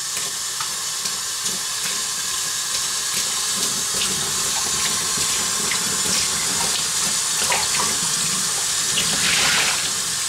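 Faucet water running into a utility sink and splashing in and over a metal spray-gun paint cup as it is rinsed clean of water-based primer, with a few light clicks from the cup being handled.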